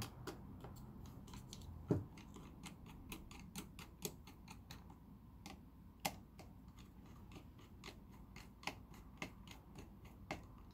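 Faint, irregular clicking of a precision screwdriver turning out small screws from a camera body, a few clicks a second, with two louder clicks about two and six seconds in.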